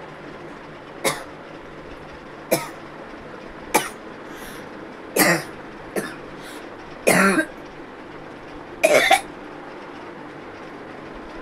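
A person coughing seven times, one short cough every second or two, the later coughs longer and louder.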